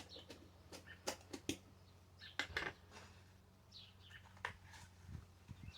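Small birds chirping in the background, with a few scattered light clicks and knocks.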